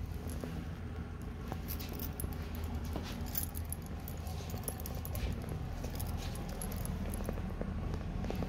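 Keys jingling in short, irregular clinks as the person carrying them walks, over a steady low hum.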